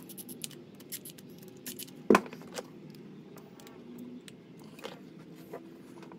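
Small clicks and light clatter of hand tools and plug parts being handled while a power cord is rewired with a new twist-lock plug, with one sharp clack about two seconds in.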